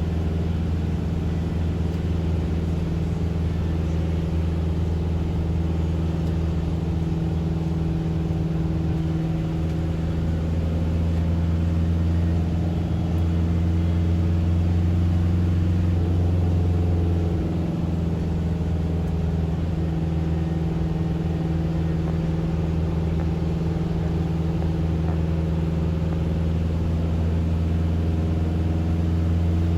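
Steady low drone of a car in motion, heard from inside the cabin, with engine and road noise continuous throughout and a brief dip in level a little over halfway through.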